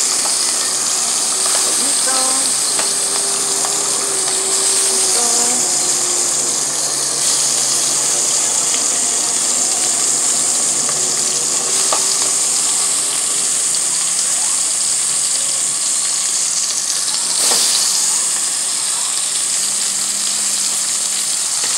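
Raw chicken pieces sizzling steadily in caramelized sugar and oil in a hot pot: the sugar browning step of a Dominican pollo guisado, searing and colouring the chicken.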